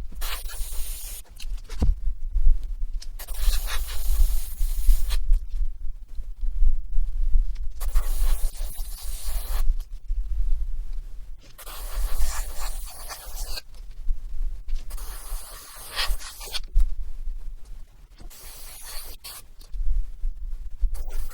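Airbrush spraying paint in short hissing passes, each a second or two long with pauses between, over a steady low hum.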